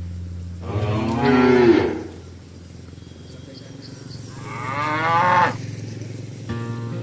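Cows mooing: two long moos a few seconds apart, the first louder and the second rising in pitch.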